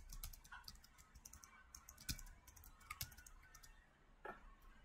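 Faint computer keyboard typing and clicking, scattered irregular keystrokes.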